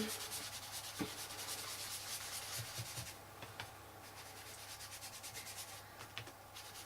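An ink applicator tool being rubbed quickly and repeatedly over cardstock and a paper mask, a fast, even scuffing with a couple of brief pauses, as ink is built up on the paper.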